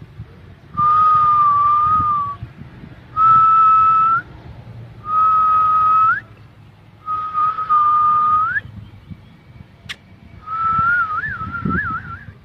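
A person whistling five held notes at a steady pitch with short gaps, several ending in a quick upward flick and the last one warbling up and down. A sharp click comes just before the last note.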